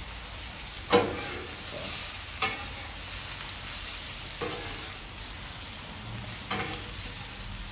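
Italian sausages and onions sizzling on a Blackstone flat-top griddle, with a steady frying hiss. A metal spatula clacks and scrapes on the steel surface about four times, every couple of seconds, as the onions are moved around.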